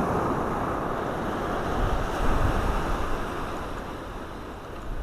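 Ocean surf washing onto a beach, with wind buffeting the microphone; the rush of the waves swells about two seconds in and eases near the end.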